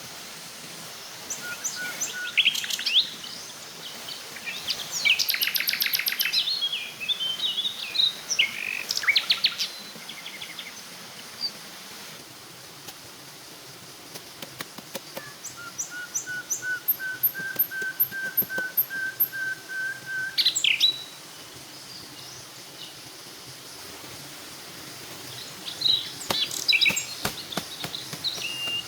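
Wild forest birds calling and singing in bursts of quick chirps and trills, with one bird repeating a whistled note many times over in the middle, over a steady faint hiss.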